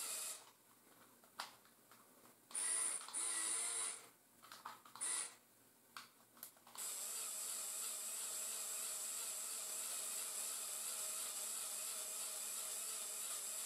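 Small electric motor driving the ladder actuator of a brick-built RC fire truck, lowering the ladder. It runs in a few short bursts, then runs steadily from about seven seconds in.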